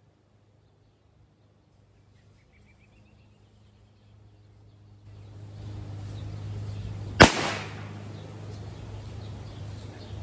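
A single sharp firecracker bang about seven seconds in, after a few quiet seconds: a delayed-fuse firecracker going off. It has a short echo. A low steady hum rises in before the bang.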